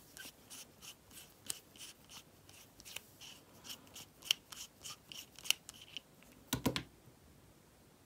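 Small hand tool scraping and picking at the bearing inside a baitcasting reel's spool: a run of light scratches and clicks about two a second, then a heavier clatter about six and a half seconds in.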